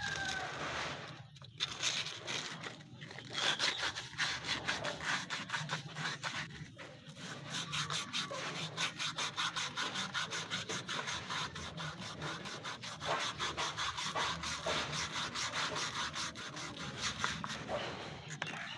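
Sandpaper rubbing back and forth in quick, even strokes, about four a second, on a starter motor's copper commutator. The commutator is being cleaned because it is dirty and the carbon brushes must sit flat on it for good contact.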